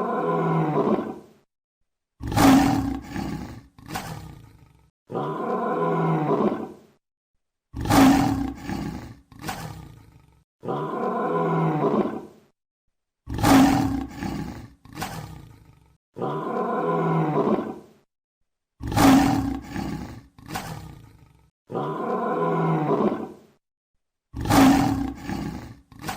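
Lion roaring: a recorded sound effect of a long roar, then a sharper roar trailing into shorter fading grunts. The sequence repeats about every five and a half seconds, with dead silence between the calls.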